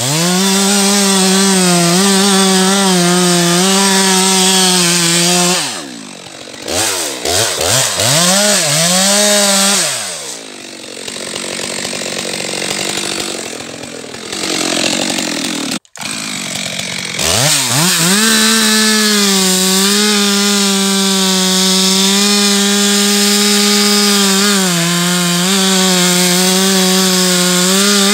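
Stihl MS 462 two-stroke chainsaw held at full throttle, cutting into beech. About 6 seconds in the revs drop and swoop up and down several times with throttle blips, then give way to a rushing noise. After an abrupt break about 16 seconds in, the saw returns to a steady full-throttle cut.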